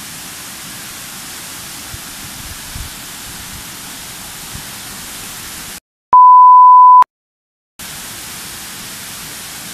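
Steady rush of water pouring over the rock cascades of a waterfall. About six seconds in it cuts to dead silence and a loud, single-pitch censor bleep lasting about a second, then the rushing returns.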